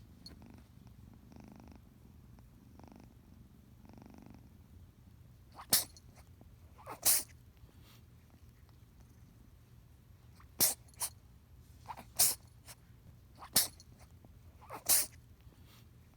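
Kitten purring softly in slow swells for the first few seconds, then sneezing sharply about six times, one to three seconds apart, with a few smaller sneezes in between.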